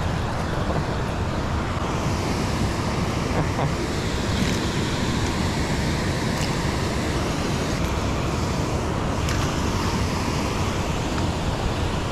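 Steady rushing of water pouring through a small dam spillway, with wind buffeting the microphone.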